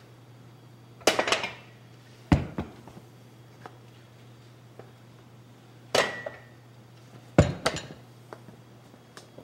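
Plate-loaded metal dumbbells clanking against each other and being set down on the floor: four loud clanks, each with a short rattle, about a second in, just after two seconds, at six seconds and at seven and a half seconds.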